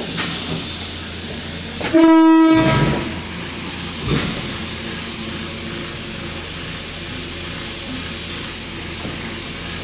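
Cab of a Class S9 diesel multiple unit under way: steady engine and running rumble, with one short horn blast about two seconds in, the loudest sound. A brief knock follows a couple of seconds later.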